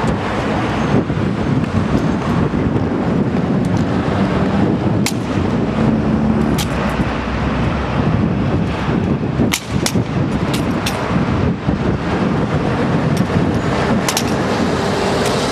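Steady low outdoor rumble, with a handful of sharp clicks or knocks scattered through it, several of them close together around the middle.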